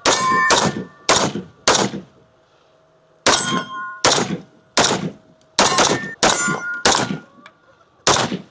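A string of about ten gunshots, spaced roughly half a second to a second apart, with a pause after the first four. Steel targets ring after the hits.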